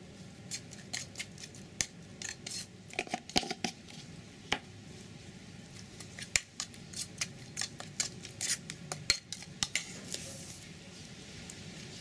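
Metal spoon clinking and scraping against a ceramic bowl as a wet chili paste is stirred: irregular clinks, often several a second, with a short scrape near the end.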